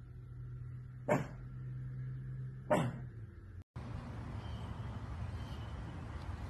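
A pug gives two short, sharp barks about a second and a half apart, over a low steady hum.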